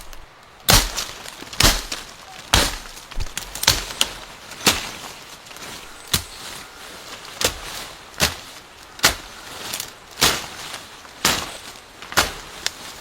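Wood being struck over and over: a series of sharp cracks, roughly one a second at an uneven pace.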